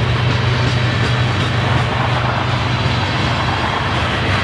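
Freight train's open-top hopper cars rolling past at speed: a steady, loud noise of steel wheels on rail.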